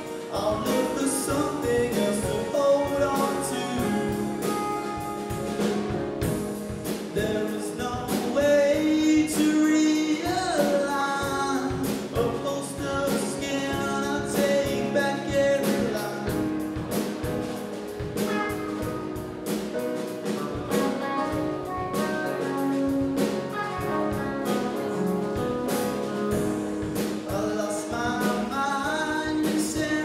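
Live band playing a song: a male singer over guitar, piano and a drum kit keeping a steady beat.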